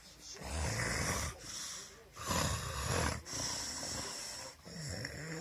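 Heavy snoring in sleep: a series of loud snores on successive breaths, each lasting about a second.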